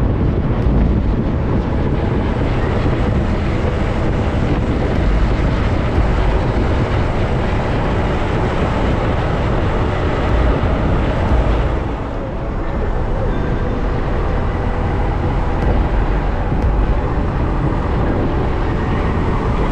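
Steady vehicle noise mixed with heavy wind rumble on the microphone, dipping briefly about twelve seconds in.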